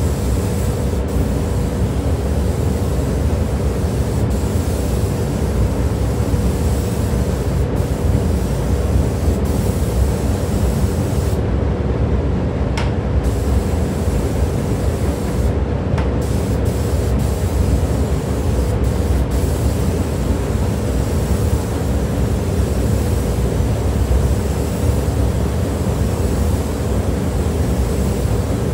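Compressed-air spray gun hissing as it sprays coating, over the steady rush and hum of a paint booth's ventilation. The highest hiss drops away briefly twice near the middle.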